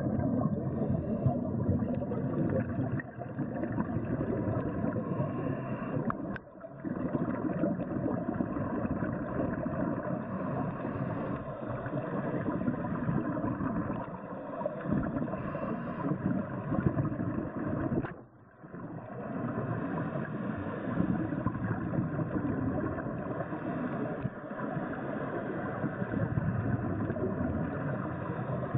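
Muffled underwater noise picked up by the camera: a steady rushing and gurgling, broken by two brief dropouts about six and eighteen seconds in.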